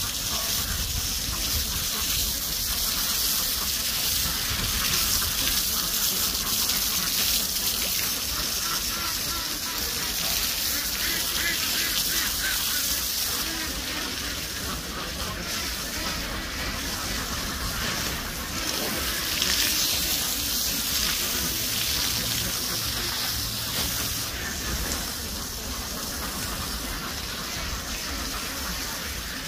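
Water gushing steadily, as when a hose washes down a duck yard.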